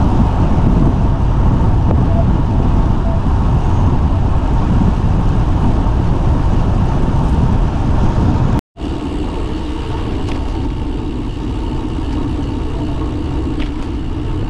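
Wind rushing over a handlebar-mounted camera's microphone while riding a road bike, with road noise from the tyres. About two-thirds of the way through the sound cuts off abruptly and a quieter, steadier rumble follows.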